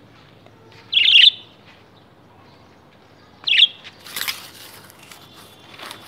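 Budgerigars giving two short, loud chirps, about a second in and again midway, followed by a brief rustle.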